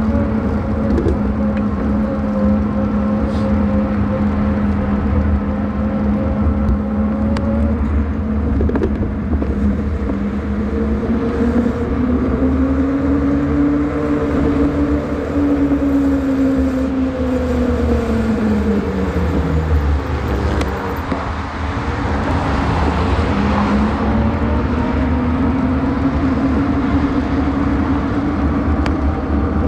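Electric bike's hub motor whining steadily under low wind rumble on the microphone. The whine rises in pitch as the bike gathers speed, falls away sharply and drops out for a moment as the bike slows about two-thirds of the way in, then picks up again.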